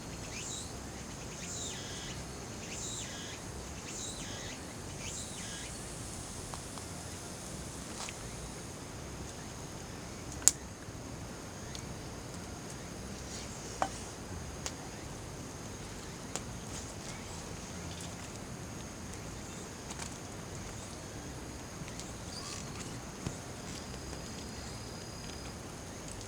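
Outdoor ambience of insects chirping in a steady high drone, with a few short falling chirps in the first seconds. Several sharp clicks or ticks are scattered through it, the loudest about ten seconds in.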